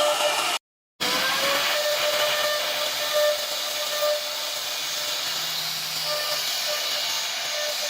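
CNC wood router running: a steady high whine over a hiss. It drops out completely for a moment just after the start, then comes back with a brief rising whine.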